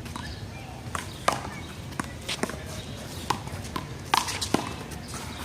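One-wall handball play: a small rubber ball sharply slapped by hand and smacking off the wall and court in an irregular run of about a dozen hits, the loudest about a second in and again near four seconds.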